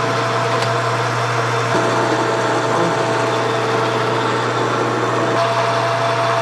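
Metal lathe running while turning metal stock, its motor and gearing giving a steady hum with a constant tone.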